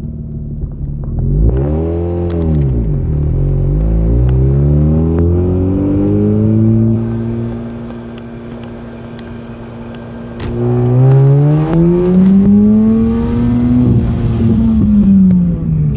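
Mazda RX-8's two-rotor rotary engine pulling away hard from a stop, its revs climbing, dropping back and climbing again, then falling off near the end. The revs sag under throttle, which the driver calls a misfire and fuel cut.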